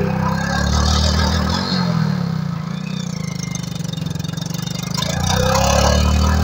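Hero motorcycle's single-cylinder engine running and revved up twice: once about half a second in, falling back toward idle, and again louder near the end.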